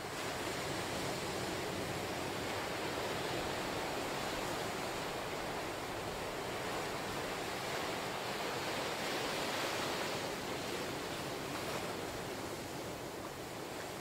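Ocean surf breaking and its foam washing up a sandy beach: a steady rush of water that swells to a peak about two thirds of the way through and eases near the end.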